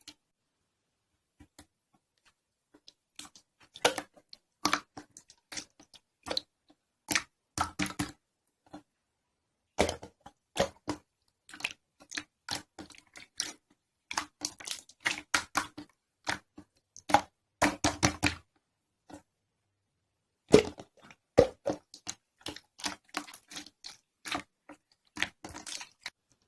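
Slime being squished and pressed by hand: irregular sticky clicks and crackling pops in clusters, with short pauses between.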